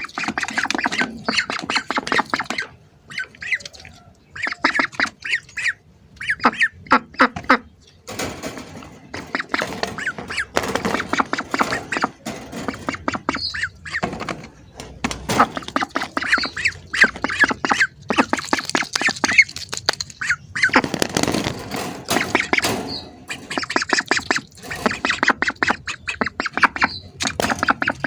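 A group of hungry ducks quacking in dense runs of short, rapid calls, with brief lulls about three and eight seconds in.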